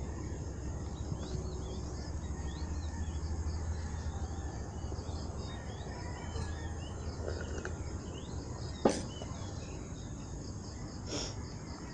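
Quiet background ambience: many faint, short high chirps scattered throughout over a low steady hum, with one sharp click about nine seconds in.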